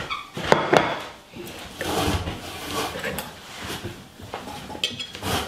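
A plate set down on a kitchen worktop with two sharp clacks, followed by rustling and shuffling as a person settles in over it, and another knock near the end.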